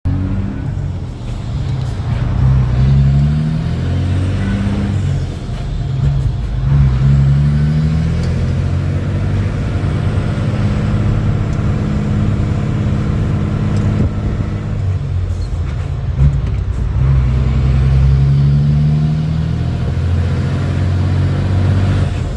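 Renault CBH truck's six-cylinder diesel engine pulling through the gears: the engine note climbs, drops at each upshift, and climbs again several times, with one longer steady stretch in the middle.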